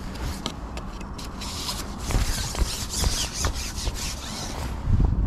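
Close handling noise: rubbing and scraping with many small clicks, denser for a couple of seconds in the middle, and a low thump near the end.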